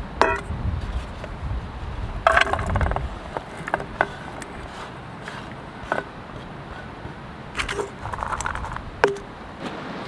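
Clinks and knocks of a small stainless steel pot being handled on a wooden counter, several with a short metallic ring. Diced onion is scraped off a wooden cutting board into the pot.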